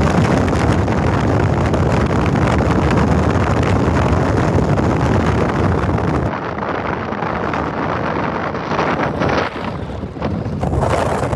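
Wind buffeting the microphone, a steady loud rumble that eases for a few seconds past the middle.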